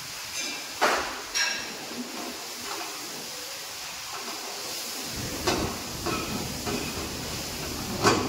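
Steady hiss of a pan cooking on a gas burner, with a metal ladle knocking and scraping against the pan a few times as it is stirred.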